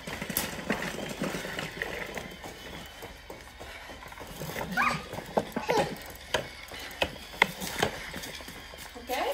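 Running shoes landing on a stone floor in quick high-knee running in place, a string of short footfall knocks about two a second. A couple of short high wavering sounds come about five and six seconds in.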